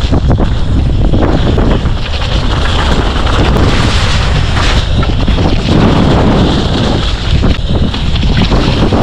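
Loud wind buffeting the microphone: a steady low rumble that swells and eases unevenly, with no pause.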